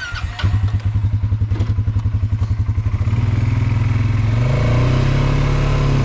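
ATV engine pulling away, a low rapid chugging at first that smooths out about three seconds in as the revs climb.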